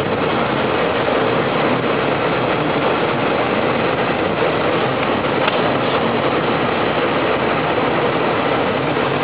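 Four-wheel-drive truck driving through deep, drifted snow: a loud, steady rush of engine and tyre noise, with a single faint click about halfway through.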